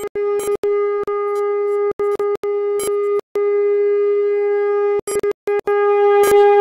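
One steady held musical note that never changes pitch, cut by many brief dropouts with clicks, and a little louder near the end.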